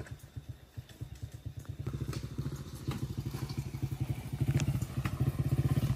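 Small motorcycle engine running at low speed, its exhaust pulsing steadily and getting louder about two seconds in. Scattered knocks and rattles come from the bike jolting over a rough, rutted track.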